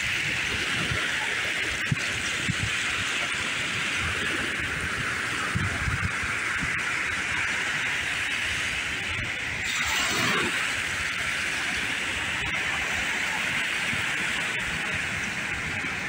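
Small ocean waves washing up over wet sand at the shoreline: a steady hissing rush, swelling briefly about ten seconds in.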